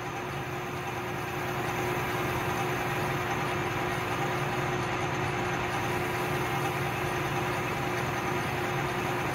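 Craftsman 12-inch lathe running steadily, with a hum, while a green abrasive pad is held against the turning bar to smooth off its high spots.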